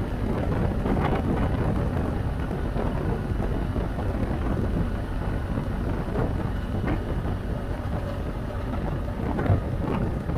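Wind buffeting the microphone on a moving motorcycle: a steady low rumble with a few scattered small knocks.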